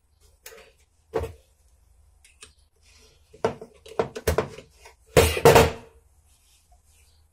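Small metal clicks and knocks as a washer and the retaining parts are fitted into a motorcycle brake master cylinder with pliers, with the loudest clatter about five seconds in as the pliers are laid down on the metal workbench.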